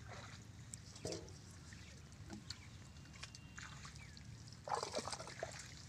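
Fish splashing and thrashing in shallow muddy water trapped in a nylon net, in short scattered splashes, with the loudest flurry near the end.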